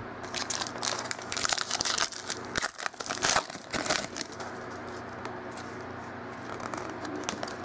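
Foil wrapper of a football trading-card pack being torn open and crinkled by hand, a dense crackle that dies down about four seconds in as the cards come out.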